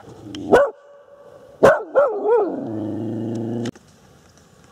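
A dog barks sharply about half a second in, then again at about 1.7 s, the second bark wavering and drawing out into a long low growl that cuts off suddenly.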